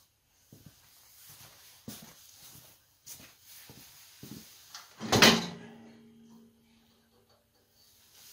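Metal knocks from an ATV snow plow's push frame and mount hooks being unhooked: a few light clanks, then one loud clank about five seconds in that leaves a low ringing tone for a couple of seconds.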